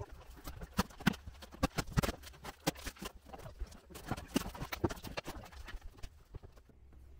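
Quick, irregular knocks and clatter of the old RV kitchen backsplash panels being pried off the wall and handled.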